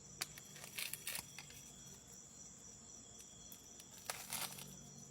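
Faint scattered crackles and rustles, a few short strokes, over a steady high chirring of crickets.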